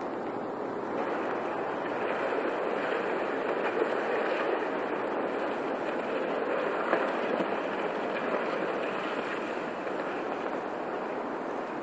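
Pancake-ice floes on a river grinding and scraping against each other and a bridge pillar. It is a steady, rough rushing noise that swells about a second in, with a couple of sharper cracks partway through.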